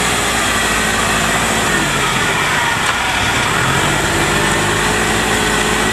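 Engine of a tracked rice carrier running steadily as it drives off with a full load of rice sacks, with slight shifts in engine pitch partway through.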